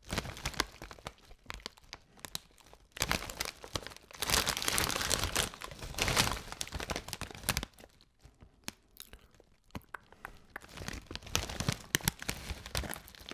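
A Lorenz Crunchips crisp bag crinkling and crackling as it is handled and turned over in the hands, in irregular flurries, the longest and loudest about three to seven seconds in.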